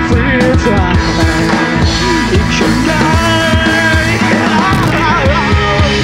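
Live rock band playing: a male singer sings over electric guitar, bass guitar and a drum kit.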